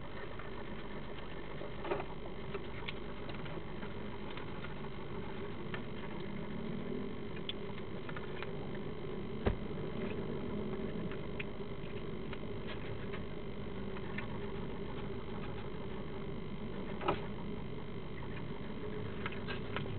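European hedgehog crunching dry food, heard as scattered small clicks with a few sharper cracks, over a steady low hum and hiss.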